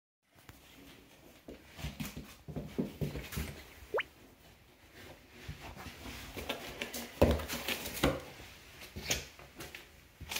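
Scattered light knocks, clicks and rustles at irregular intervals, the loudest about seven to eight seconds in, with one short squeak rising sharply in pitch about four seconds in.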